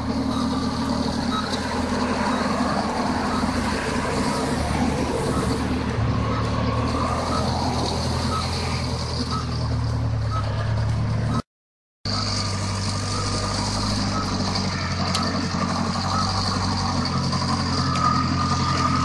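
Princeton PB70 piggyback forklift's engine running as it manoeuvres with a load of lumber, its backup alarm giving evenly spaced short beeps. The sound cuts out for about half a second roughly two-thirds of the way through.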